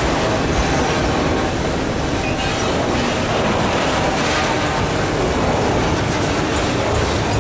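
Autorack freight cars rolling past close by, a steady rumble of steel wheels on rail that never lets up.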